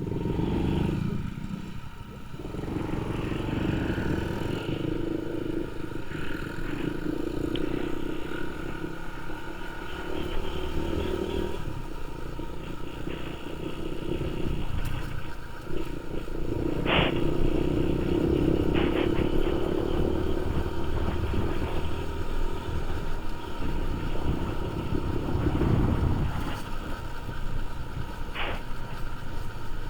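Motorcycle engine running while riding in traffic, its note coming and going with the throttle every few seconds, over road rumble, with a few brief sharp sounds.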